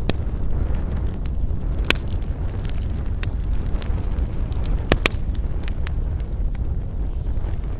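Wood fire burning with a steady low rumble and scattered crackles and pops, the sharpest about two seconds in and a close pair about five seconds in.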